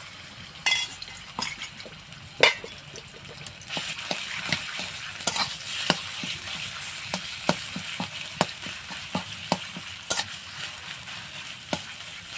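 Ground chicken paste sizzling in hot oil in an aluminium kadai, with a metal spatula scraping and tapping against the pan as it is stirred. The sizzle gets fuller about four seconds in, and the sharpest tap comes about two and a half seconds in.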